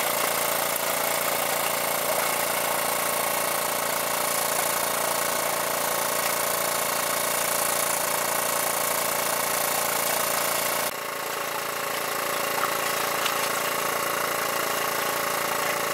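Engine of a large-capacity water pump running steadily. The sound drops abruptly in level about eleven seconds in, then carries on.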